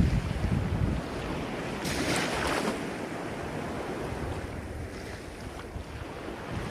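Ocean surf washing ashore, with a wave surging and breaking about two seconds in, then settling into a softer wash. Wind buffets the microphone with a low rumble in the first second.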